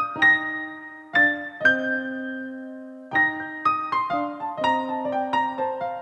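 Background music on piano: a few slow struck chords, one left to ring, then a quicker run of single notes stepping downward.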